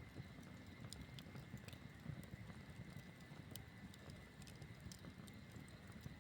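Campfire burning faintly: irregular sharp crackles and pops of burning wood over a low rumble.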